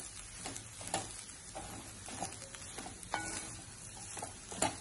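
Wooden spatula stirring and tossing seasoned cooked rice in a pan on the stove. It makes irregular scrapes and taps against the pan over a faint sizzle.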